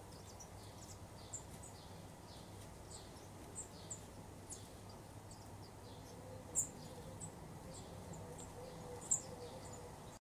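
Small birds chirping faintly: short, high chirps at irregular intervals, a few louder ones standing out, over a steady low background hiss. The sound cuts off suddenly near the end.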